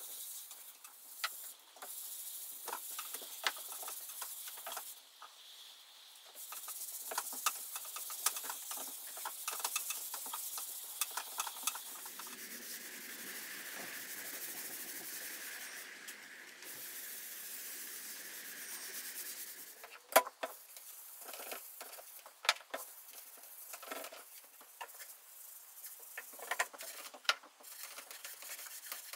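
Cloth pad rubbing paste wax over the finished teak surfaces of a sideboard: a continuous scrubbing hiss broken by many small clicks and taps, with a steadier stretch of rubbing in the middle.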